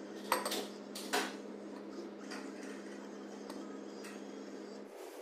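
A metal spoon clinks twice against a bowl while chicken filling is scooped, with a few fainter ticks after. Under it runs a steady low hum that cuts off near the end.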